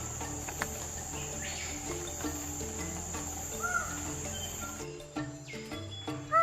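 Steady, high-pitched insect drone with a few short, arching bird calls, over a repeating pattern of short low notes. The drone cuts off abruptly about five seconds in.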